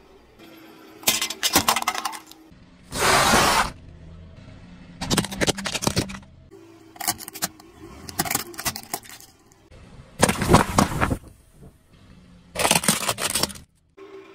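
Objects crushed under a car tyre: a string of about seven crunching, cracking bursts one to two seconds apart, one about three seconds in longer and denser than the rest.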